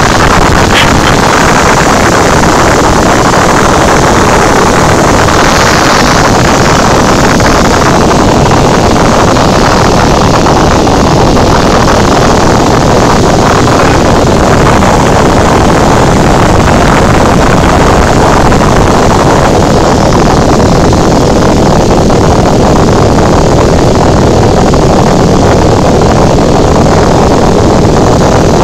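Loud, steady drone of a Cessna 172's piston engine and propeller in flight, heard inside the cabin.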